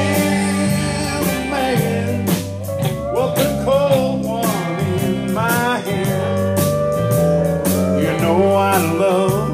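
Live country band playing an uptempo song: electric lead guitar, pedal steel guitar, acoustic rhythm guitar, bass and drums, with a singing voice over them.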